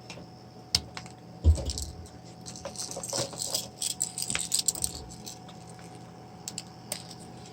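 A few sharp clicks and a dull knock, then a few seconds of light clicking and rattling of small parts as a baby monitor camera is handled and pulled apart, then two more clicks.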